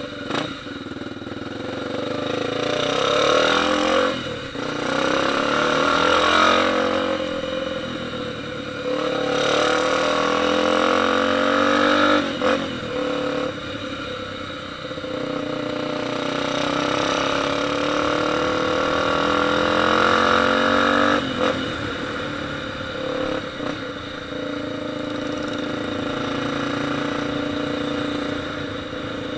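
Motorcycle engine under acceleration: its pitch climbs and then drops suddenly several times, then runs steadier near the end.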